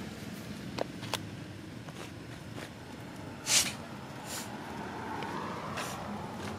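Footsteps and rustling in dry leaf litter, with a few light clicks and one louder crackle about three and a half seconds in, over a steady low background rumble.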